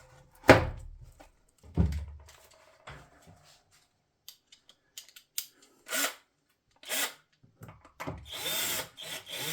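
Handling knocks and clicks, then a cordless power screwdriver running briefly near the end, driving a screw back into the bar.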